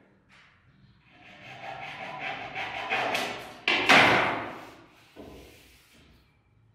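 Scraping on wood that builds for a couple of seconds, then a sudden loud knock that dies away, and a lighter knock after it.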